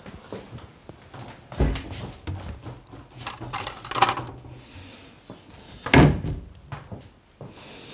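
Storage being opened and shut while thicker silver wire is fetched: scattered knocks and thuds, the loudest about six seconds in.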